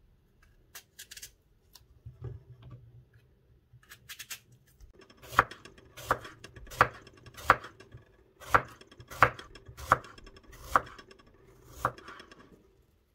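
A knife slicing an apple into thin slices on a wooden cutting board. It starts with a few faint cutting clicks, then from about halfway through comes a steady run of about nine sharp knocks of the blade on the board, roughly one every 0.7 seconds.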